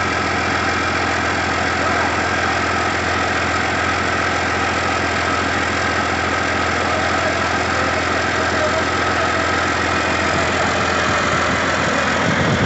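John Deere 9.0 L PowerTech Tier III inline-six diesel engine, freshly assembled, running steadily at idle.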